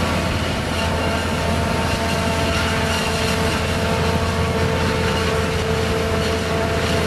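Heavy diesel machinery running steadily together: a self-propelled forage harvester, a tractor with a silage trailer and a crawler excavator, giving a deep constant drone with a steady whine over it.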